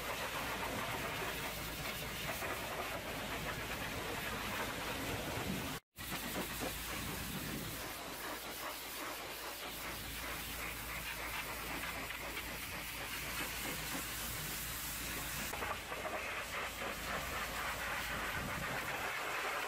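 High-pressure water jet from a pressure-washer lance hitting a box truck's chassis, tyres and mudflap: a steady hiss of spray that changes as the jet moves. It cuts out completely for a moment about six seconds in.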